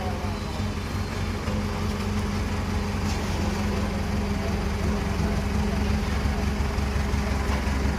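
Heavy construction machine's engine running steadily with a low hum, the low rumble growing louder about five seconds in.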